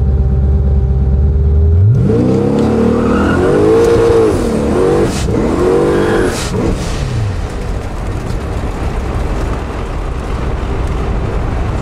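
Twin-turbo 427 cubic-inch small-block Chevy V8 in a Mazda RX-7, heard from inside the cabin. It runs low and steady, then about two seconds in revs hard, its pitch rising and swinging up and down as it spins the rear tyres in a burnout. After about seven seconds the engine note gives way to a steady rushing noise.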